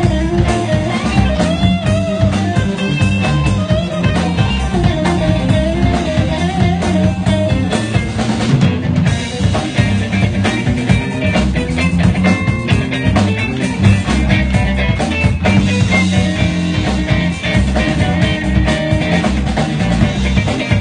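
A live blues trio playing: an electric guitar lead with bent, wavering notes over electric bass and a drum kit.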